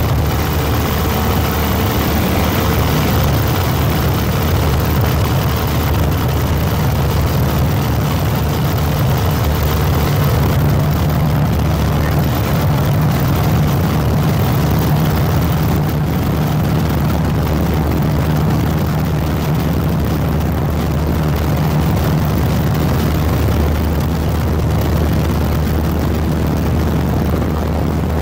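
Steady low drone of an aircraft's engine, heard from aboard in flight.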